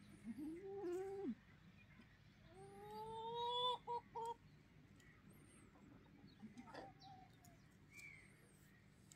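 Goats bleating: a short call at the start, then a longer, louder rising bleat about three seconds in, cut off by two short ones. Faint bird chirps sound in between.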